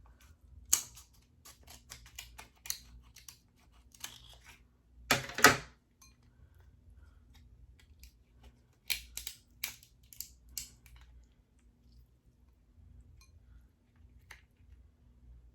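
King crab leg shells being cracked and pulled apart by hand: a scattered series of sharp cracks and clicks, the loudest cluster a little past five seconds in and another run about nine to eleven seconds in.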